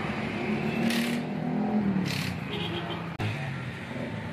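Passing road traffic: motor scooter and car engines, one engine's pitch rising and then falling as it goes by, with two short hisses about a second apart.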